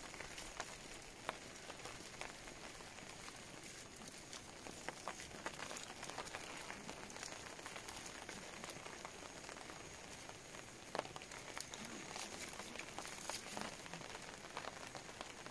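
Steady rain pattering, with scattered sharp drips and ticks.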